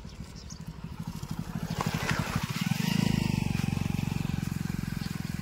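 A motorcycle engine running with a rapid, even firing pulse. It grows louder to a peak about halfway through, then slowly fades.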